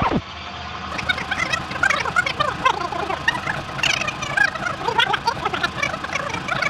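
Cassette tape rewinding sound effect: recorded audio whizzing past at high speed, a garbled, high-pitched chatter of rapid squeaks and chirps.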